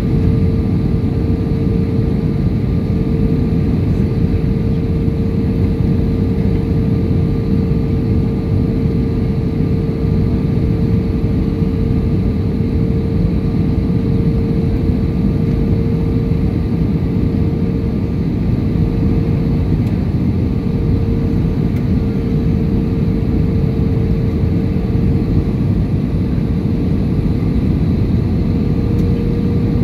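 Airbus A320-200 cabin noise on final approach, heard from a window seat over the wing: a steady engine and airflow rumble with a constant hum running through it and no change in level.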